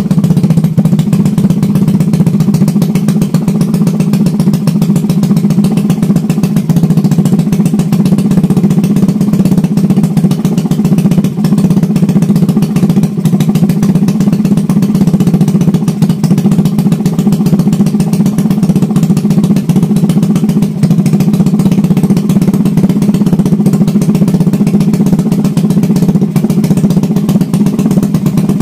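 Suzuki Raider 150's single-cylinder four-stroke engine running steadily at a constant speed, without revving, on a Walbro 28mm carburettor fed with petrol from a bottle.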